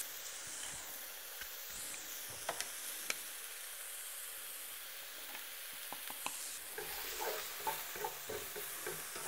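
Chopped onions and garlic sizzling in a hot stainless steel wok, a faint steady hiss, with a few sharp clicks around the third second. Near the end a wooden spatula stirs and scrapes through the onions.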